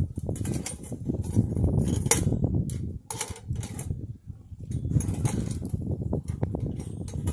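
Wind and the fire of a small stainless-steel wood-gas stove making a gusting low rumble. A few sharp metal clinks come from pliers knocking against the stove's rim.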